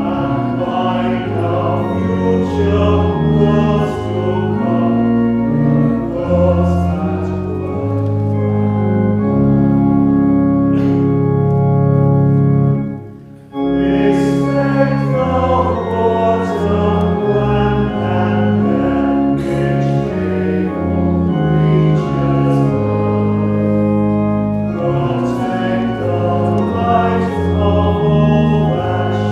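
Congregation singing a hymn together with pipe organ accompaniment, in steady held notes. The music breaks off for a moment a little before halfway, then the organ and voices come back in.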